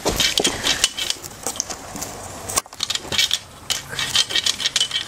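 Irregular clattering and clicking of small hard pieces being knocked about, with a short lull a little past halfway: the broken plastic and glass bits of a smashed coffee maker.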